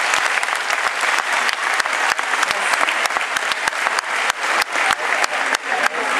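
Audience applauding: a dense clapping with many sharp individual claps standing out close by.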